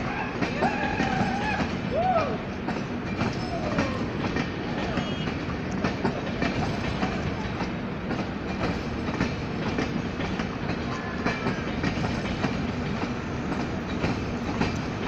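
Long train of passenger coaches rolling past, with steady wheel rumble and clickety-clack of wheels over rail joints.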